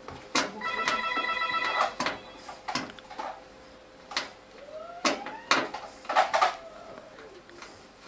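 Sharp clicks and knocks of a hand tool against a washing machine's sheet-metal back panel as it is dismantled. About half a second in, a pulsing electronic ringing tone sounds for just over a second.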